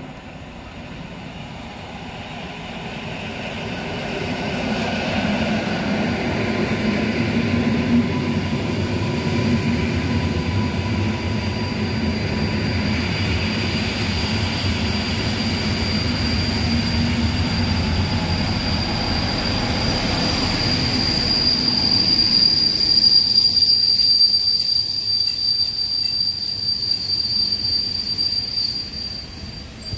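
An EN57 electric multiple unit rumbling as it pulls into the station, with a thin steady whine. About halfway through, an EP07P electric locomotive hauling passenger coaches runs in, its wheels giving a loud, high steady squeal as it brakes.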